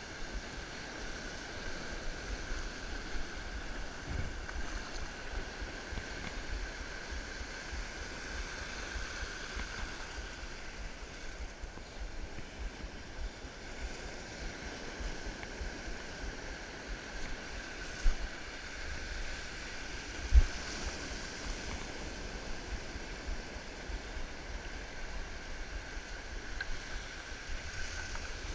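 Shallow ocean surf washing and swirling around the legs, with a faint steady high tone underneath and a low rumble on the microphone; two sharp low thumps stand out, about 18 and 20 seconds in.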